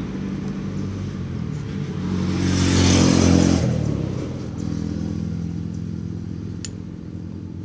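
A motor vehicle engine running steadily in the background, swelling louder about three seconds in and then easing back. A single small click comes near the end.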